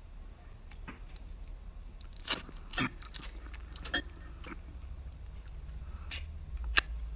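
A person chewing a mouthful of spaghetti, with a series of short, sharp clicks, the loudest near the end.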